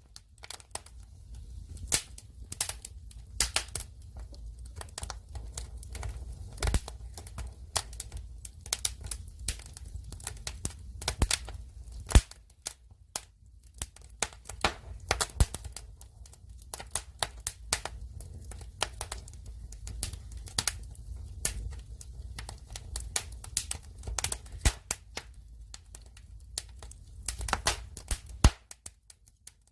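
Wood fire crackling, with sharp pops at irregular intervals over a steady low rumble. The loudest pop comes about twelve seconds in, and the sound briefly drops out near the end.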